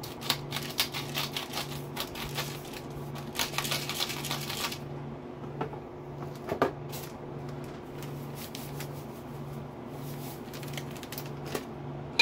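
Hand-twisted pepper mill grinding peppercorns over a pot: a rapid run of crunching clicks for about four and a half seconds, followed by a couple of light knocks.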